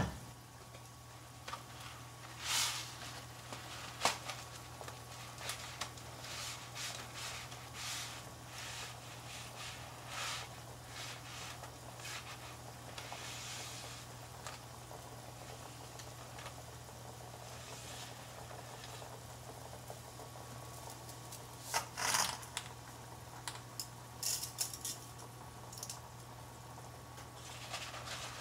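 Pot of water coming to the boil with spaghetti in it: faint scattered bubbling pops and ticks over a steady low hum, with a few louder clattering clicks about 22 and 25 seconds in.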